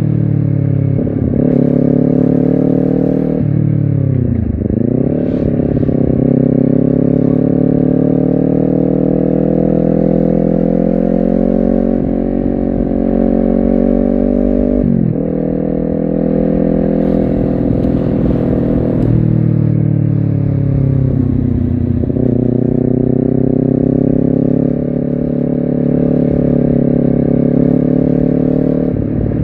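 Honda CBR250RR motorcycle engine and exhaust running under way, its pitch rising and falling with the throttle. The pitch dips deeply and recovers about four to five seconds in, drops suddenly about halfway through, and sinks then climbs again near two-thirds of the way in, as with gear changes.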